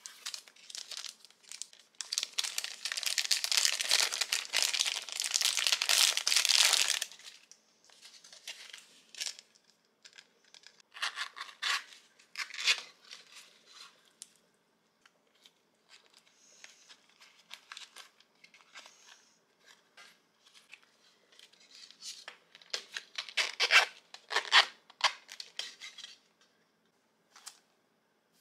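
Crinkling and tearing of plastic packaging and handling of a yellow zippered vinyl coin purse. A long loud stretch of crinkling starts about two seconds in, shorter rustles and scrapes follow, and another loud spell comes near the end.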